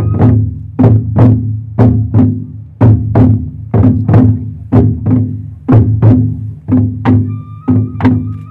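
Background music: a steady percussive beat of sharp wood-block-like strikes over a low bass line, with a held higher tone joining near the end.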